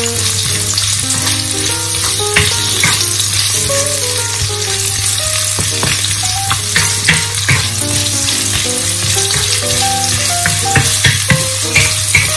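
Sliced onion and garlic sizzling in hot oil in a nonstick wok, with a steady frying hiss. A wooden spatula stirs the pieces, scraping and knocking against the pan from time to time.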